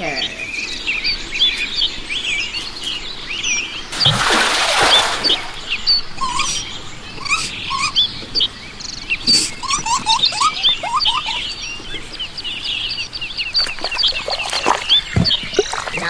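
Woodland songbird chorus: many small birds chirping and trilling in quick, overlapping high calls, with a few lower whistled notes in the middle. A brief rush of hiss-like noise comes about four seconds in, lasting a second or so.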